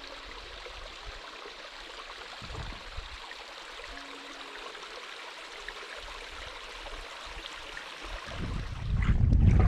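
Steady trickling, rushing water. About eight seconds in, a low rumble of wind on the microphone swells up and grows loud.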